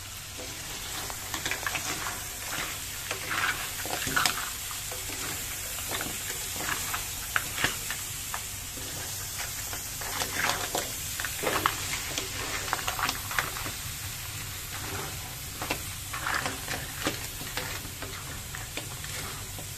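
Mud crabs frying in black pepper sauce in a metal wok, sizzling steadily, while a ladle and wooden spatula stir them, scraping and clattering irregularly against the crab shells and the pan.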